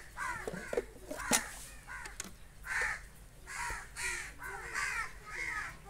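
Crows cawing again and again, short arched calls following one another through the whole stretch. A few sharp knocks of steel milk pails and a metal funnel being handled, the loudest about a second and a half in.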